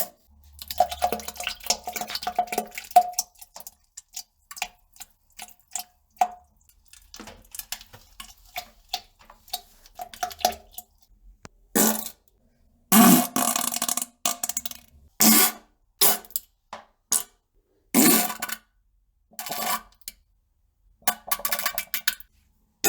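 A string of sputtering fart sounds and poop splats. A long crackly one comes first, then short scattered pops, and from about halfway several louder blasts, one sliding down in pitch.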